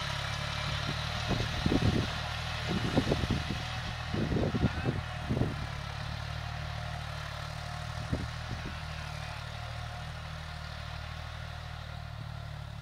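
A farm tractor's diesel engine running steadily under load as it pulls a tillage implement, its drone slowly fading as it moves away. Several short, loud low rumbling bursts come over it in the first half and once more near 8 seconds.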